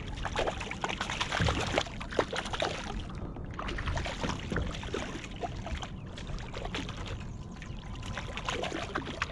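Hooked landlocked salmon thrashing at the surface beside a kayak, with repeated irregular splashes and water sloshing.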